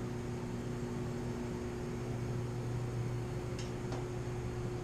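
Washing machine motor, fed by a Kodiak portable power station's inverter, giving a steady low electrical hum as it strains and fails to get the agitator going, with a faint click or two near the end.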